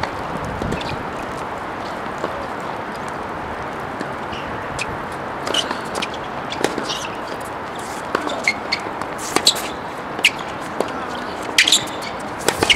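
Tennis balls being struck by rackets and bouncing on a hard court: a scattering of sharp pops, growing more frequent in the second half as a rally gets going, over a steady background hiss.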